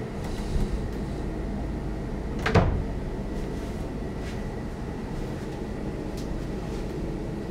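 A single sharp knock about two and a half seconds in, over a steady low hum.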